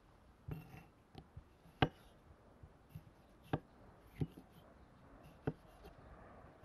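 Chef's knife cutting up plums: a string of faint, irregularly spaced knife knocks, about nine, the loudest a little under two seconds in.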